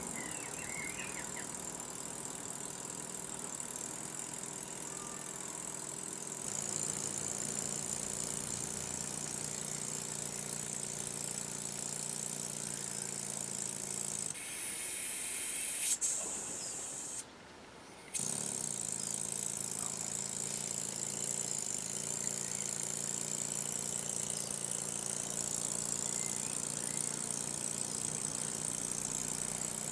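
Quarter-scale brass Wig-Wag model engine running fast: a steady buzzing hum with a high exhaust hiss. It gets louder a few seconds in and cuts out for about a second past the middle.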